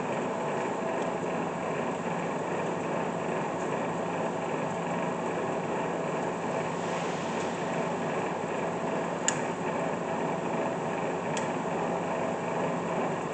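Bridgeport Series II 4 hp vertical milling machine running under power, giving a steady mechanical hum. A sharp click about nine seconds in and a fainter one about two seconds later.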